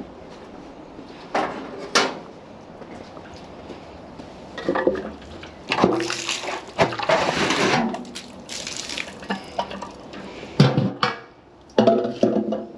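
Muddy water poured out of a plastic bucket, splashing onto the ground for a few seconds, with sharp knocks and clatter of buckets being handled before and after the pour.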